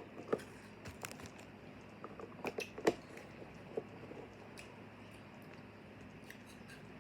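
Slime being squeezed and played with by hand, making small wet clicks and pops, a quick run of them about three seconds in, then fewer and fainter.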